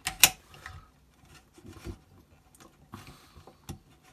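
Clicks and taps of a rectangular 9-volt battery being pressed into the fold-out plastic battery tray of a Fender Marine Layer Reverb pedal. Two sharp clicks come right at the start, followed by scattered lighter taps as the battery is worked into place.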